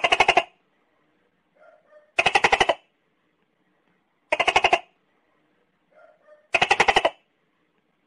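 Tokay gecko calling: four short, rapid rattling bursts, each about half a second long, coming about every two seconds.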